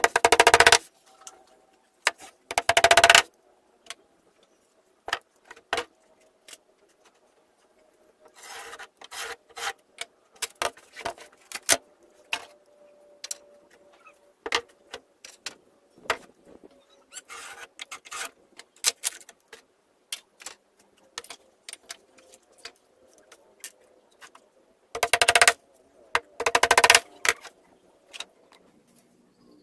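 Hand tools working a plywood door panel: a few loud rasping strokes, each under a second, near the start and again near the end, with scattered light taps and knocks in between.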